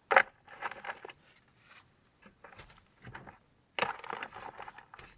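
Handling noise from unpacking a backup camera kit: packaging and parts rustling in several short, sharp bursts, the loudest right at the start.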